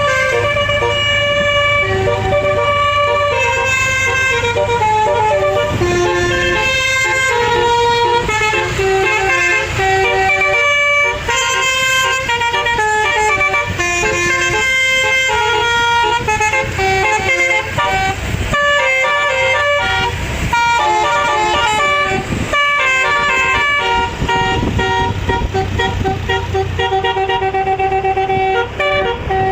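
Six-note telolet bus horn playing a continuous run of tunes. Its notes change in quick steps, often several sounding together as chords, over the steady low hum of the bus engine.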